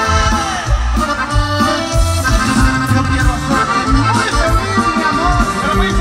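Live norteño band playing an instrumental passage: accordion carrying the melody over a steady bass beat.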